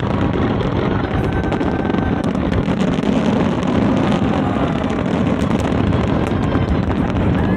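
Fireworks going off in a dense, continuous barrage: a steady rumble of bursts overlaid with many small crackles.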